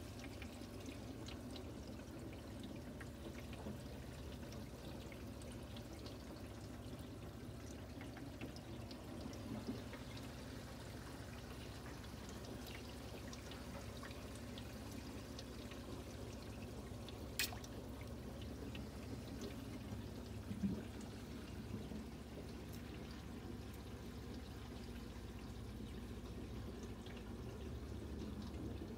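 Aquarium filter water trickling and splashing steadily into the tank over a low hum. A sharp click sounds a little past halfway, followed a few seconds later by a couple of soft knocks.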